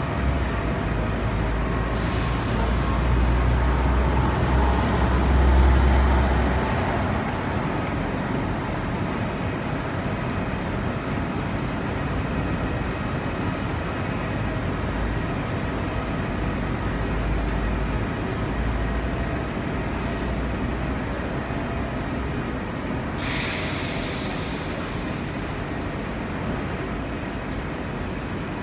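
Tram convoy passing on the rails, a Hermelijn tram towing an older BN coastal tram, with a steady rumble that is strongest in the first several seconds. Two loud bursts of hissing air cut in, one about two seconds in and a shorter one near the end.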